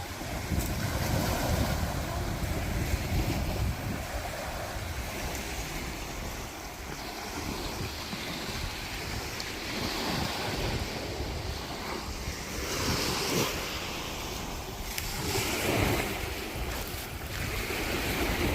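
Wind buffeting the microphone over the rush of sea water and waves around a moving boat: a steady noise with a heavy low rumble that swells a few times.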